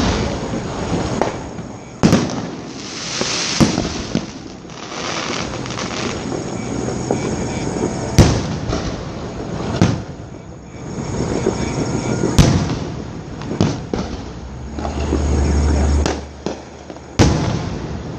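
Fireworks display: aerial shells bursting with sharp bangs every few seconds over continuous crackling. The loudest bang comes about eight seconds in, and a low rumble lasts about a second near the end.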